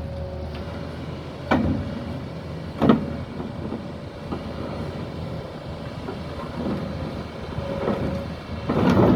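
Doosan excavator's diesel engine running steadily, with two sharp metal knocks about a second and a half and three seconds in, and a louder scraping clatter near the end as the machine, one final drive dead, is forced across the trailer deck.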